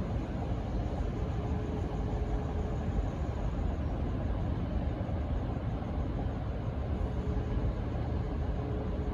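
V/Line N class diesel-electric locomotive running steadily with a low rumble, with no horn sounding. A faint, steady whine comes in early on and again near the end.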